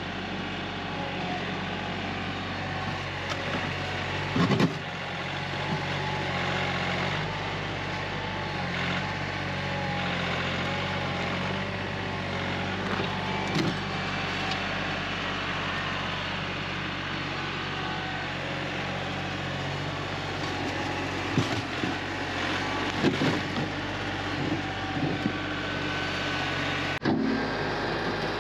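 Tractor engine running steadily, its pitch shifting a few times, with a few separate knocks and clunks over it.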